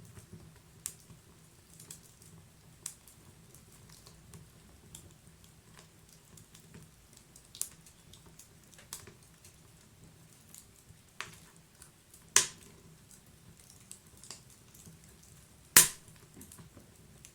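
Wood fire crackling in a fireplace: irregular sharp pops and snaps from the burning wood over a faint low steady rumble of the flames, with two much louder pops in the second half.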